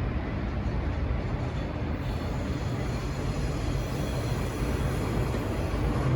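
KTX-Sancheon high-speed train running on the line at a level crossing: a steady low rumble of rail noise, with a faint high whine from the rails coming in about two seconds in.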